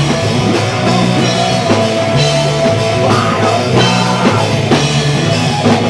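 Rock band playing live: distorted electric guitar, bass guitar and a drum kit, with a steady beat of drum and cymbal hits.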